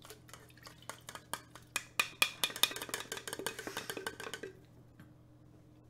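Rapid run of light metallic clicks and clinks as a metal fire-eating torch rod is handled, stopping about four and a half seconds in.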